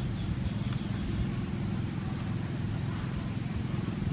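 An engine running steadily, with a low, even rumble.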